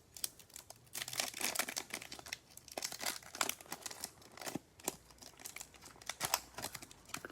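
A trading-card pack wrapper being torn open and crinkled in the hands: an irregular run of crackly rips and crinkles, easing off for a moment about halfway through.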